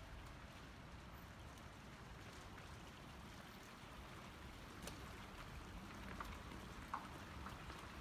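Faint, steady ambience of a quiet wet street in falling snow: a soft hiss over a low rumble, with a few small ticks about five to seven seconds in.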